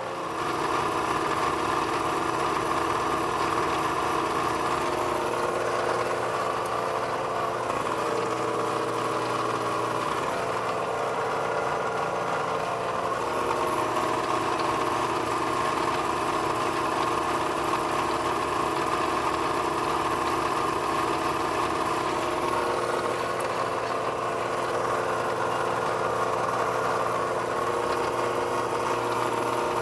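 Milling machine spindle running steadily with an edge finder in it: a constant motor hum whose tones shift a few times.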